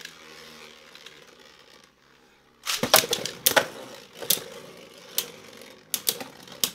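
Beyblade Burst spinning tops in a plastic stadium: a faint whirring hum as Geist Fafnir spins on the bowl floor, then from about three seconds in a run of sharp plastic clacks as the two tops hit each other and the stadium wall. These are hard hits that do not burst Geist Fafnir.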